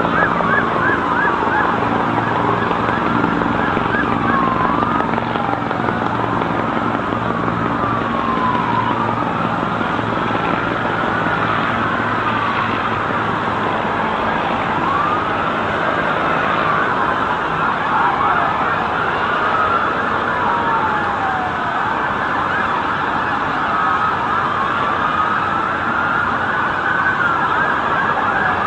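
Several emergency-vehicle sirens wailing at once, their overlapping tones rising and falling, over a low steady engine-like drone that fades out about halfway through.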